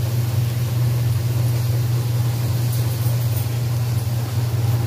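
A steady low hum, even in pitch and level, with a faint hiss behind it.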